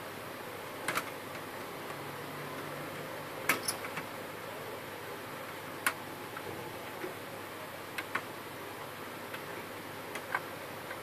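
Sharp metal clicks and taps, a few seconds apart and some in close pairs, as the sheet-metal formatter-board plate is shifted and seated on the opened HP LaserJet 1300 printer's chassis, over a steady background hiss.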